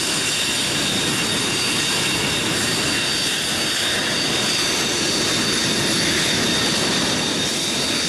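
Jet transport's turbofan engines running at idle: a steady high whine over an even rushing noise.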